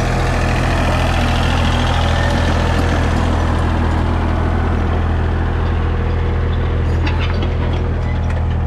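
Komatsu PC30 mini excavator's diesel engine running with a steady, low drone, with a few faint clicks about seven seconds in.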